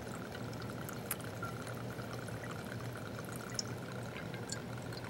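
Whiskey pouring in a steady, quiet stream from a bottle's metal speed pourer into a glass mason jar, with a couple of faint ticks.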